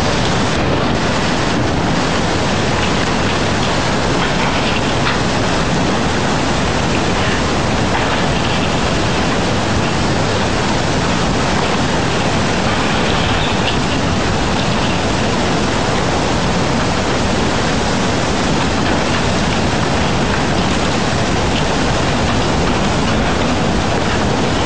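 Tsunami floodwater rushing through a port, a loud, steady wash of noise that does not let up.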